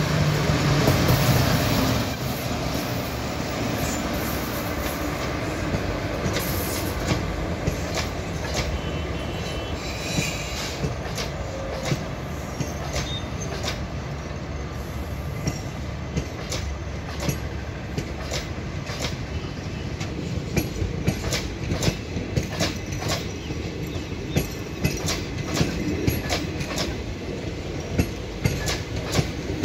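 A WAP-4E electric locomotive passing at speed, loudest in the first two seconds, followed by its rake of passenger coaches rolling past with a steady rumble and a clickety-clack of wheels over rail joints. The clicks come more often in the second half.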